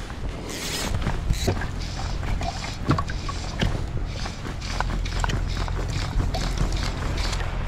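Shallow sea water lapping and splashing in short, irregular splashes around a wading angler, over a steady wind rumble on the microphone.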